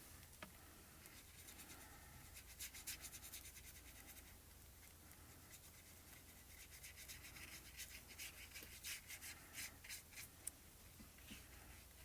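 Faint scratchy rubbing of a watercolor brush's bristles on paper as it spreads watercolor marker ink, in two spells of quick short strokes.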